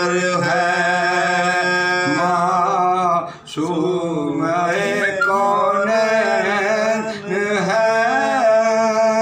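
Male voices chanting soz, the unaccompanied Urdu lament for the martyrdom of Imam Ali, in long held, wavering notes over a steady low note. There is a brief break for breath about three and a half seconds in.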